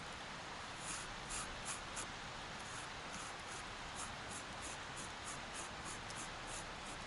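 A series of short, dry scratching strokes, about two or three a second, starting about a second in, over a steady rushing hiss.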